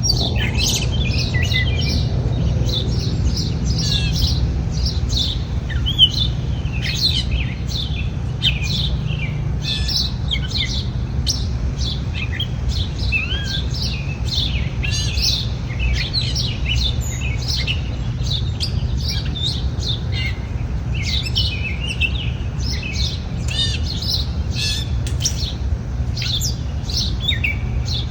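Many small birds chirping and twittering at once, short quick calls overlapping throughout, over a steady low rumble.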